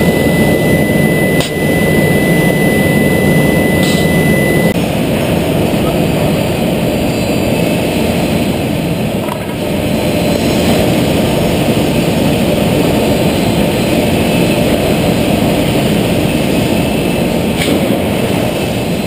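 Homag BAZ 32/50K Optimat CNC machining centre running, a loud steady machine noise, with a thin high whistle over the first five seconds or so.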